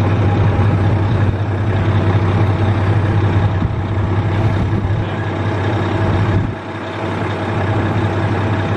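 Heavy machine's engine running steadily with a low hum, dipping briefly about two-thirds of the way through.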